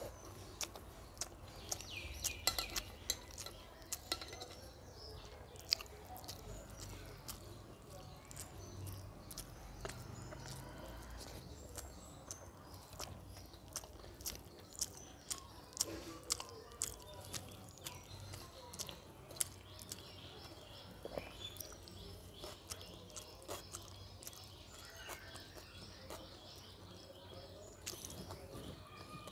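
Close-up eating sounds: chewing and lip smacks from a person eating rice and dal by hand, with fingers squelching and mixing rice on a steel plate and scattered small clicks.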